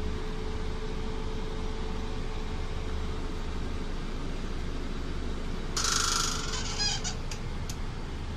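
Steady low hum inside a parked Scania K400 coach. About six seconds in there is a hiss lasting about a second, with a quick run of clicks.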